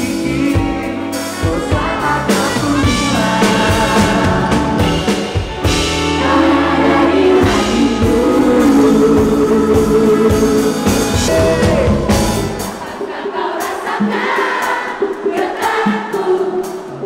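Live pop-jazz band playing with layered vocal harmonies over the accompaniment. About two-thirds of the way through, the bass and low end drop out, leaving a lighter, thinner backing.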